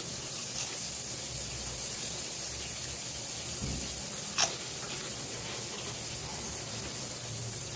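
Oil sizzling steadily as shishamo fish fry in a pan, with a sharp crunch of a prawn cracker being bitten about four seconds in.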